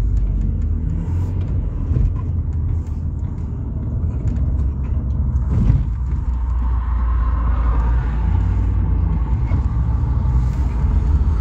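Car driving, heard from inside the cabin: a steady low rumble of engine and road noise, with a brief knock a little past halfway.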